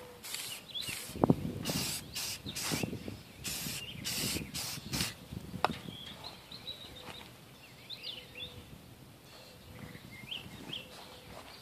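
Aerosol can of metallic spray paint hissing in a series of short bursts through the first five seconds or so, with a sharp knock about a second in. Birds chirp faintly afterwards.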